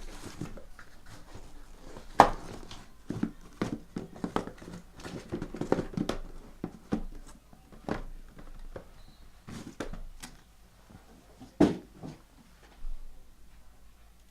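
Trading-card boxes and packs being handled on a table: scattered knocks, taps and rustling, with two sharper knocks, about two seconds in and just before twelve seconds.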